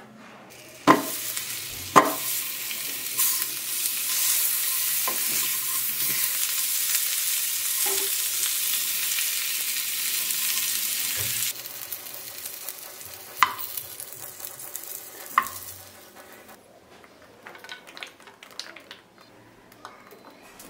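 Masala-coated corn cobs sizzling in butter in a frying pan, with two sharp knocks near the start. The loud sizzle cuts off suddenly about eleven seconds in, giving way to a fainter sizzle with two more knocks before it fades.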